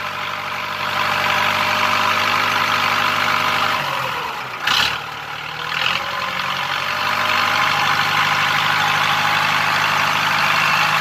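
Iseki 6500 tractor's diesel engine running while its hydraulic front loader arms are raised. About four seconds in the engine note sags, with a short knock, then picks back up and runs steady.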